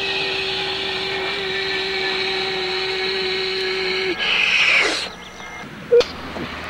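Spaceship hum sound effect for a flying saucer: a steady hum with one held tone that stops about four seconds in. A short hissing swell follows, then a sharp click near the end.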